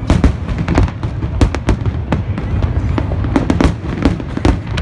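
Aerial fireworks bursting in rapid succession, more than a dozen sharp bangs over a steady low rumble.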